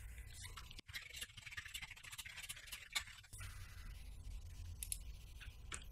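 Faint computer keyboard typing: a quick run of light key clicks, then a few scattered clicks near the end.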